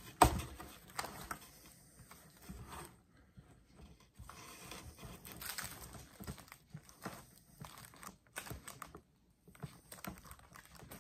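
Plastic card-pocket pages in a ring-binder album crinkling and rustling as they are handled and flipped, with irregular small clicks. A sharp knock about a quarter second in is the loudest sound.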